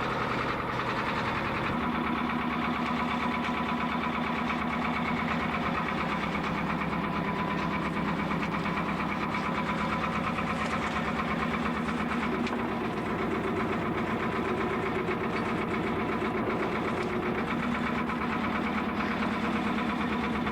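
Fishing boat's engine running steadily at low revs, a continuous pulsing drone that shifts its note about two seconds in.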